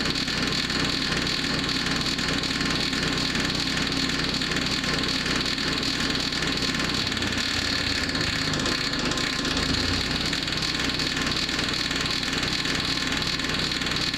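Powerhorse wood chipper-shredder's small gasoline engine running steadily, with a slight change in its low note about halfway through.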